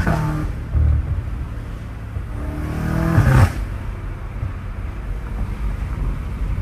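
BMW M5 Competition's twin-turbo V8, fitted with downpipes and aftermarket intakes, being driven on the throttle. The revs drop suddenly as the driver lifts off right at the start, a short rising pull follows about three seconds in and is cut off sharply, and the engine otherwise rumbles low and steady.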